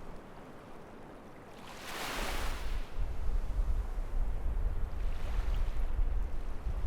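Surf washing onto a beach, one wave swelling and breaking about two seconds in and a fainter one about five seconds in. Strong wind buffets the microphone, adding a heavy low rumble from about two seconds on.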